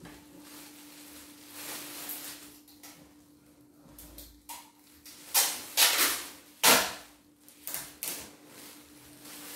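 Plastic bag crinkling and rustling as it is handled and rummaged through, with a cluster of loud crackles about halfway through.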